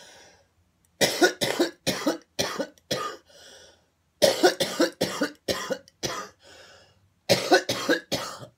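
A woman's coughing fit: three runs of several hard, sharp coughs, each followed by a breath drawn in.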